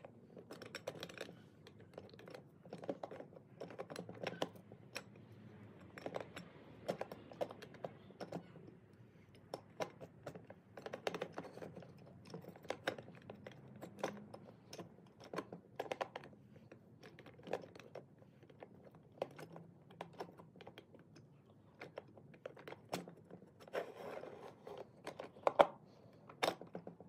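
Clutch pack assemblies of a Chrysler 904 TorqueFlite automatic transmission being turned and worked down into the case by hand, giving faint, irregular metal clicks and taps as the parts feel for their engagement; the pack is not yet fully seated. A couple of louder taps come near the end.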